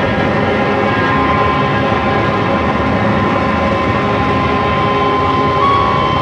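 Harsh noise music played live: a loud, dense, unbroken wall of noise with a thin held high tone running through it, which steps up in pitch near the end.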